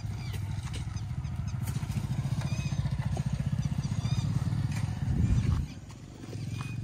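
Motorcycle engine running with a low, fast-pulsing note, growing louder to a peak about five seconds in, then dropping away suddenly as it passes.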